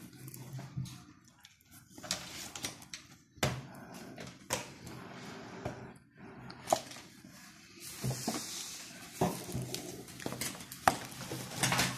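White cardboard phone box handled and its lid worked off, giving scraping, sliding and light knocks and clicks. From about eight seconds in there is a steady hiss of rustling as the plastic-wrapped phone is uncovered.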